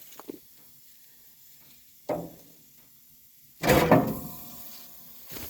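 Metal smoker being handled: a sharp knock about two seconds in, then a louder clank that rings briefly.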